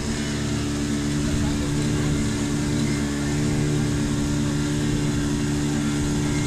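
Engine of a canopied passenger river boat running steadily while underway, a constant low drone.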